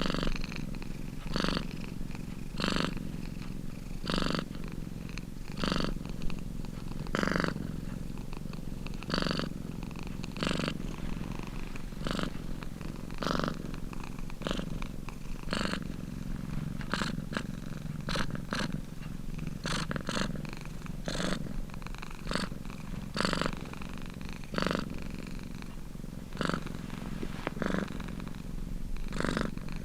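Domestic cat purring continuously, the purr swelling in a regular rhythm about every second and a half as the cat breathes in and out.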